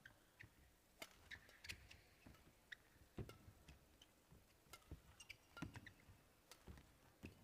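Faint, sharp racket hits on a shuttlecock in a badminton singles rally, roughly one every second at uneven spacing.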